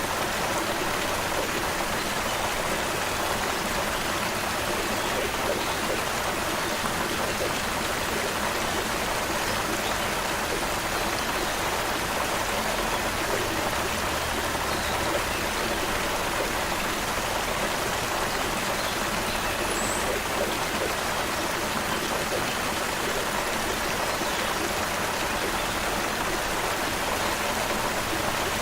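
Creek water flowing steadily in an even, unbroken rush, with one brief faint high chirp about two-thirds of the way through.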